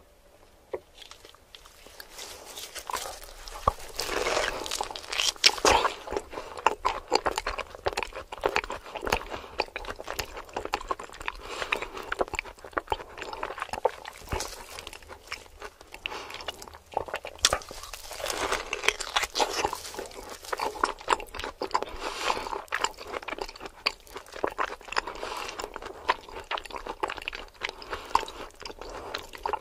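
A person biting into and chewing a thick piece of seared meat with a browned crust, close to the microphone. The sharp crunchy bites and wet chewing start about two seconds in and go on without a break.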